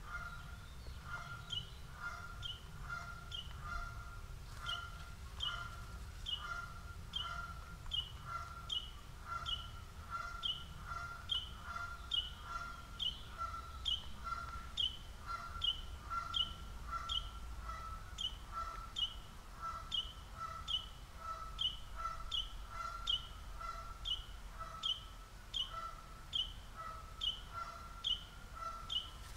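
An animal calling over and over, short call notes repeated about twice a second, with a short pause about four seconds in.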